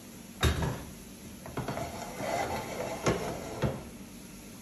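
Cookware being handled on a gas stovetop: one solid knock about half a second in, then a few lighter irregular clicks and clacks as the pans are moved.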